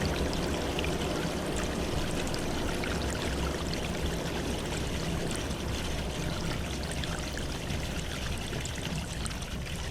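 Steady rush of flowing water, an even noise with no distinct impacts.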